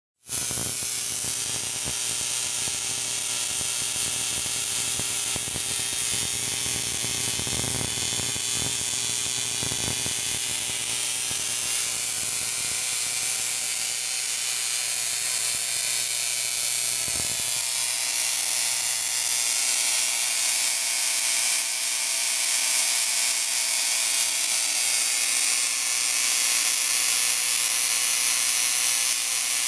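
Homemade Tesla coil running: a steady, rapid electrical buzzing hiss of sparks and corona discharge, the high voltage leaking as corona around the rim of a Leyden jar. It grows slightly louder in the second half.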